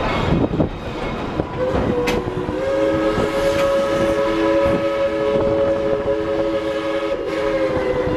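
Steam locomotive whistle blowing one long chord of several tones, starting about a second and a half in and held for about six seconds, over the clatter of the train's wheels on the rails.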